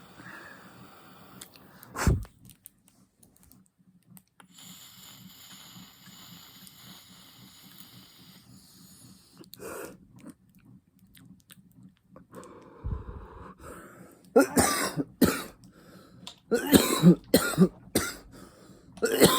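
A man's coughing fit: a run of loud, harsh coughs begins about fourteen seconds in, from throat irritation after inhaling cannabis vapour. Before it there is a single knock about two seconds in and a faint steady hiss lasting about four seconds.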